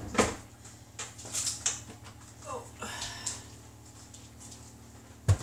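Stainless steel mixing bowl being unlocked from a stand mixer and set down on the worktop: scattered metallic clanks and knocks, with a low thump near the end.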